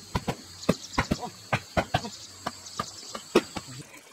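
A quick, irregular series of sharp knocks, about three a second, the loudest near the end, like hard objects striking. Under them runs a steady high-pitched whine that cuts off near the end.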